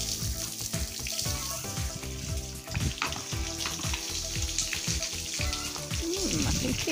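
Water from a garden hose spraying over a horse's coat, a steady hiss.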